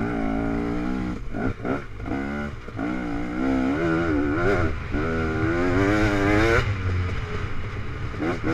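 Dirt bike engine revving up and down as the rider works the throttle along a single-track trail. It eases off briefly a couple of times in the first few seconds, then climbs and falls in pitch again.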